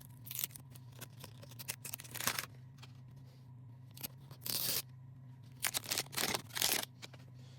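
Plastic wrapping being torn off a Mini Brands blind-box capsule in several short rips, with small clicks and handling noises between them.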